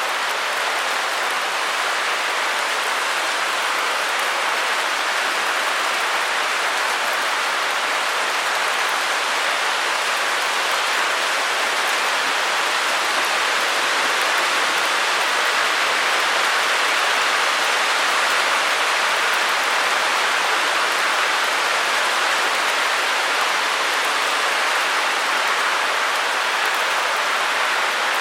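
Steady white noise: an even, unbroken hiss, strongest in the upper middle range with little bass.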